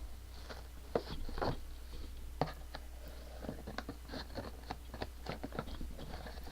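Packaging being handled: a scatter of irregular crinkles, clicks and taps from plastic and cardboard, over a steady low hum.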